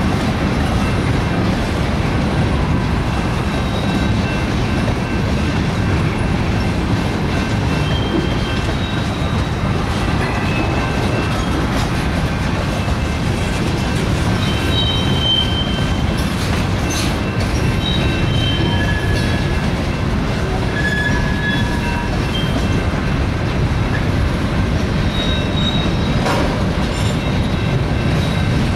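Freight train of tank cars and a covered hopper rolling past: a steady rumble of wheels on rail. Short high-pitched wheel squeals come now and then, with a few brief clanks.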